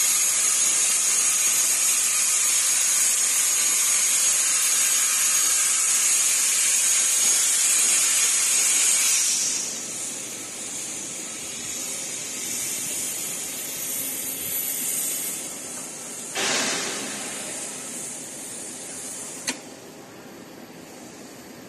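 Hypertherm HPR400XD plasma torch cutting steel: a loud, steady hiss with a thin high whine, which stops about nine seconds in as the cut ends. A quieter hiss follows, with a short burst of hiss about two thirds of the way through and a sharp click near the end.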